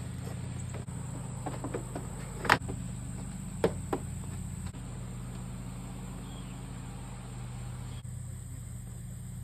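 A few sharp plastic clicks and knocks, about two and a half and four seconds in, as ATV body plastics are pushed into place. Under them run a steady insect chirring and a low steady hum.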